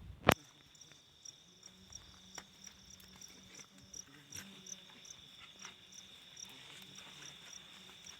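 Crickets or other insects chirping steadily: a continuous high trill with sharper chirps at about three a second over it, and a faint low hum underneath. A single sharp click, the loudest sound, comes just after the start.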